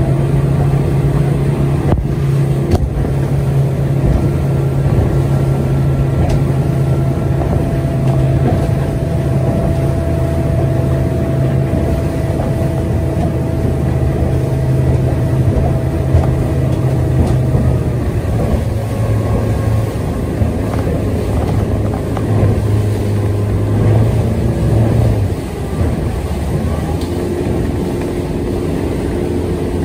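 Outboard motor running steadily, driving an inflatable boat over choppy water. The engine note shifts about two-thirds of the way through and drops a little in pitch and loudness soon after.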